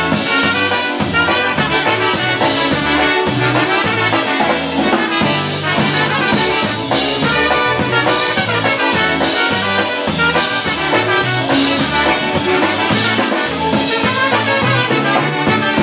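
Live Polish-American polka band playing an instrumental passage: two trumpets play the melody in harmony over drums and a bouncing bass line.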